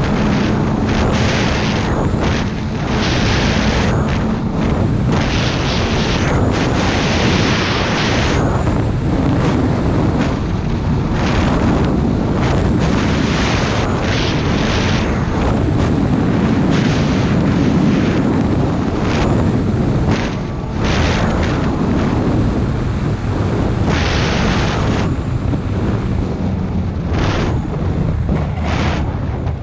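Snowmobile engine running at speed along a packed trail, with heavy wind buffeting the camera microphone. Loud throughout, easing briefly twice, about three seconds in and again about twenty seconds in.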